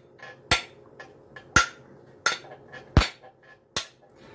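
Framing hammer striking a steel 10-inch saw blade five times, each blow sharp with a short metallic ring, a little under a second apart.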